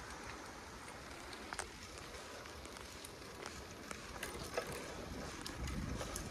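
Bicycle rolling along a leaf-strewn dirt trail: steady tyre and wind noise with scattered small clicks and rattles from the bike, and more low rumble near the end.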